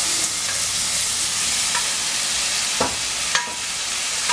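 Chicken pieces tipped from a stainless steel bowl into a very hot skillet of broccoli and onions, sizzling steadily in the oil. Near the end the metal bowl clinks against the pan twice, and the second clink rings briefly.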